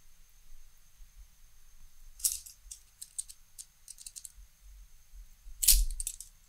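A scatter of small, sharp clicks and taps as a thread bobbin and hook are handled while thread is wrapped onto an assist hook. There is one click about two seconds in, a quick cluster a second later, and the loudest clicks near the end.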